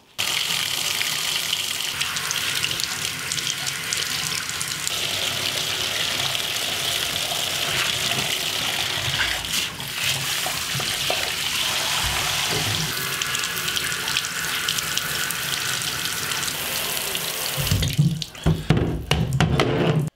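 Water running hard from a handheld shower sprayer into a bathtub, a steady hiss that starts suddenly, as hair dye is rinsed out with cold water. A few knocks near the end.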